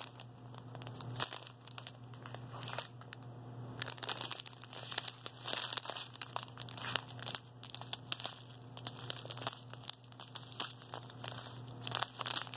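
Small plastic zip bags of diamond-painting drills crinkling and rustling as they are handled, with many irregular sharp crackles.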